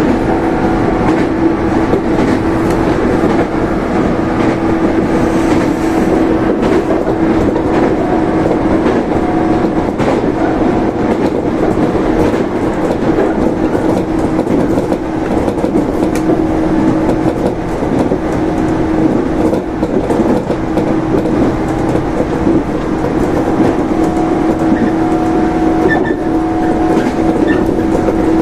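115-series electric train's MT54 traction motors running loud with a steady whine at an unchanging pitch, heard from the front cab while the train holds its speed.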